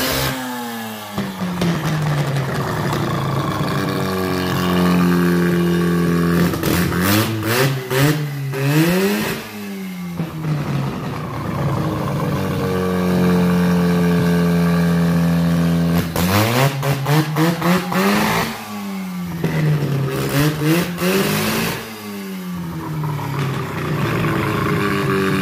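Rebuilt rotary engine on its first test run, revved up and back down several times between stretches of steady running. It runs okay on a worn second-hand Carter carburetor but still needs tuning.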